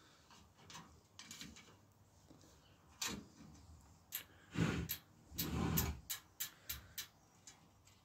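Clicks and ticks of a spoke key turning spoke nipples and of spokes being handled as a rear wheel is tensioned in a truing stand, with a few louder handling noises around the middle and a quick run of sharp clicks near the end.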